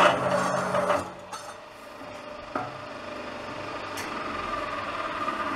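Metal-cutting cold saw (troncatrice) running through L-shaped metal angle with oil on the blade; the cut ends and the saw motor runs down about a second in. A single sharp click follows, and a faint steady whine builds near the end.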